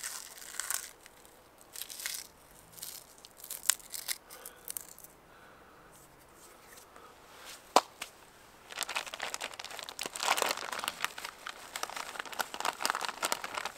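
Pork rinds (chicharrones) crushed by hand, with scattered faint crunches and crackles and one sharp crack about eight seconds in. For the last five seconds a plastic bag crinkles steadily as it is handled.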